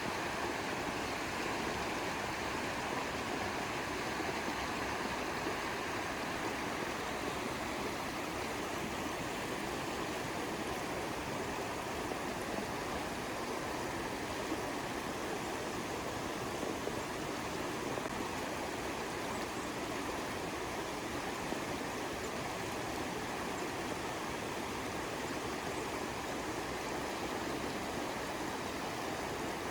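Small stream running over rocks: a steady, even rush of flowing water.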